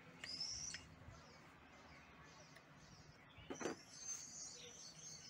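Faint birdsong: a bird's short high chirps and whistles, repeated, with a brief knock about three and a half seconds in.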